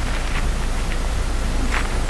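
Gloved hands pushing a plastic connector into a short plastic pipe: a few brief rustles and squeaks of glove and plastic, over a steady hiss.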